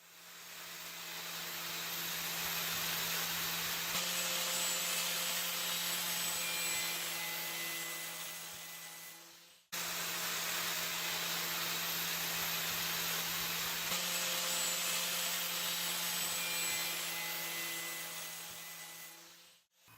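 An electric power tool running steadily, its motor hum overlaid with a scratchy abrasive noise, in two runs of about ten seconds each with a brief break near the middle.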